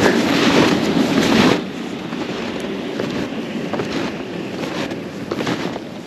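Wind buffeting the microphone, loud for the first second and a half, then easing to a steadier, quieter rush.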